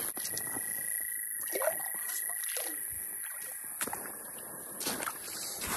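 Evening creek-side chorus of insects and frogs: a steady high insect buzz and a long even trill. Water sloshes briefly about a second and a half in, and a few knocks follow near the end.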